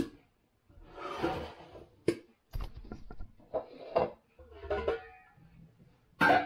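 Kitchen clatter: a string of sharp knocks and clanks as a plastic bowl is moved on the counter and the lid is taken off a steel stockpot full of fresh popcorn, with rustling handling noise in between. The loudest clank comes near the end.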